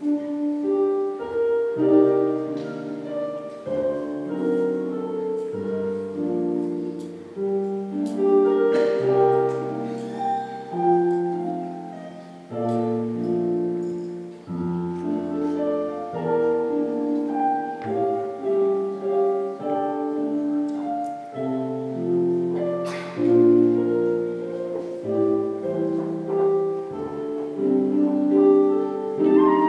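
School orchestra playing slow, held chords that change about once a second; a higher melody line comes in near the end.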